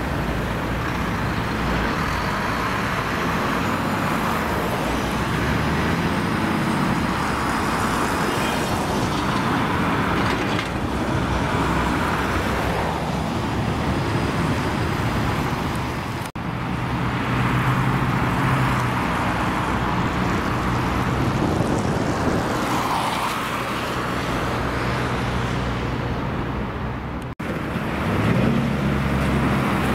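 City street noise of trams and road traffic: a steady rumble of passing cars and trams, with a low motor hum that rises in pitch near the end as a tram pulls away.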